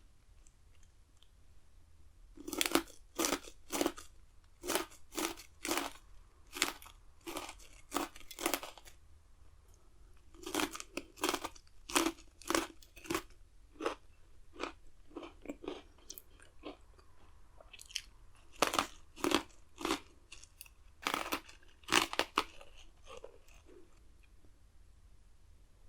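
Pocky chocolate-coated biscuit sticks being bitten and chewed close to the microphone, giving crisp crunches at about two to three a second. The crunching comes in three runs with short pauses between them.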